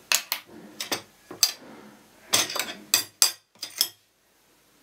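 Metal ladle and glass bottle clinking as they are handled, about ten sharp clicks in quick, uneven succession that stop about four seconds in.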